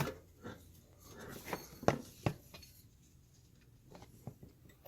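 Scattered light clicks and knocks, two sharper ones about two seconds in, as a serpentine belt is worked around the engine's pulleys by hand.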